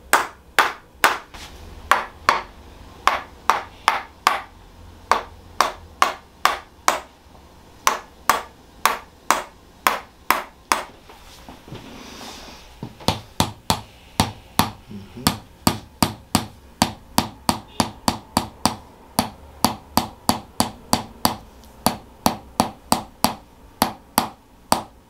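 Tok sen hammer massage: a red mallet tapping a wedge held against the lower back, giving sharp, rhythmic clacks about two to three a second, with a pause of a second or two about halfway through.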